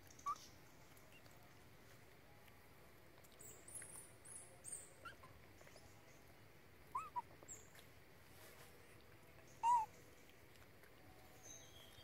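Macaques giving a few short, high squeaks, scattered and faint against the outdoor background, the loudest a little after two-thirds of the way in. Thin, higher chirps come in a small cluster a few seconds in.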